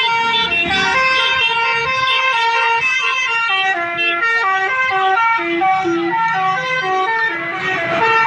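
Multi-tone telolet bus horn playing a melody, its horn notes stepping up and down every fraction of a second without a break.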